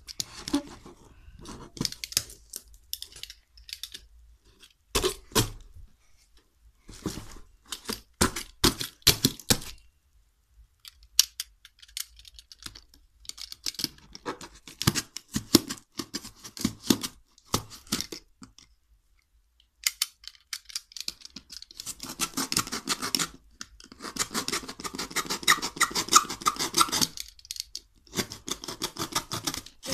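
Snap-off utility knife cutting and scraping through thick cardboard in short, crackling strokes, with the cardboard tearing. About twenty seconds in comes a long run of fast rasping strokes.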